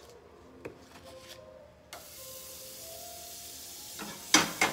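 Butter sizzling in a hot nonstick frying pan over a gas burner, the hiss starting suddenly about two seconds in and then holding steady. Near the end there are two loud clatters as the pan is tilted on the burner grate.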